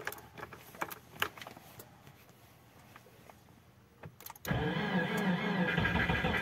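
A few light clicks, then a quiet spell. About four and a half seconds in, the starter begins cranking the 2008 Subaru Impreza's flat-four boxer engine in a −30 °C cold start, and the engine has not yet caught.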